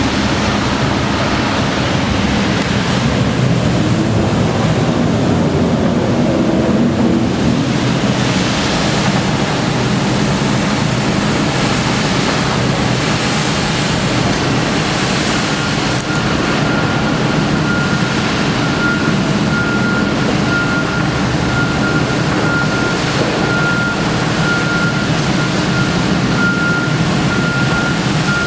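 Loud, steady noise of heavy vehicle engines running. From about halfway through, a vehicle's backup alarm beeps steadily over it.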